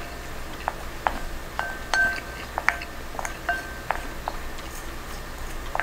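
Wooden spoon tapping and scraping against the inside of a ceramic rice bowl, about a dozen irregular knocks, many leaving the bowl ringing briefly with a clear tone. It is the sound of scooping up the last of the rice from the bowl.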